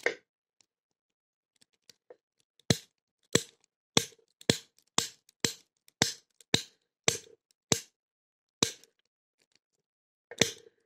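A lock-picking snapping tool firing against the pins of a Blossom padlock: a run of sharp snapping clicks, about two a second, each with a short metallic ring from the padlock, pausing briefly before starting again near the end.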